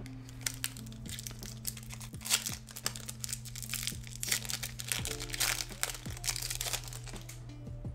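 Foil booster-pack wrapper crinkling and tearing open in irregular bursts, over soft background music.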